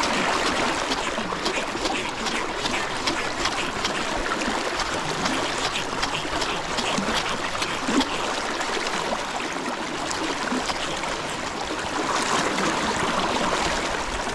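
Fast-flowing river water rushing around a wading angler's legs: a steady rush of current, a little louder in the last couple of seconds.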